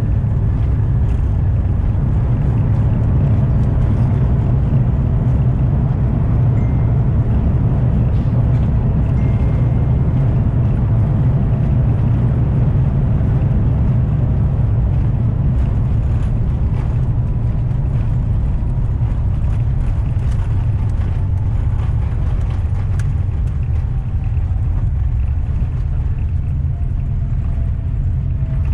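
Steady cabin noise inside an Airbus A350-900 airliner: a loud low rumble of the engines and airflow with a faint hiss above it.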